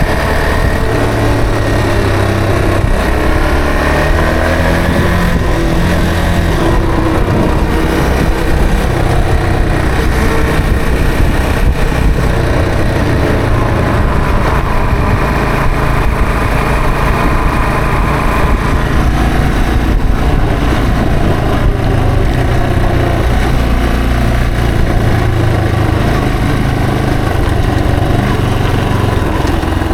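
Yamaha TW225's single-cylinder four-stroke engine running on the move, its pitch rising and falling with changes of speed.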